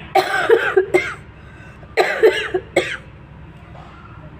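A woman coughing in two bouts, each a quick run of several coughs: one at the start and one about two seconds in.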